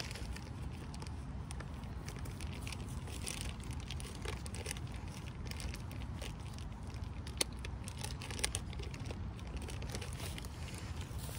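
Steady low outdoor rumble with scattered faint crackling and two sharp clicks in the second half.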